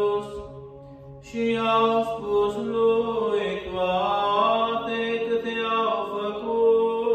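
Chanted vocal music: long held sung notes over a steady low drone note. It falls quiet briefly near the start and resumes about a second in.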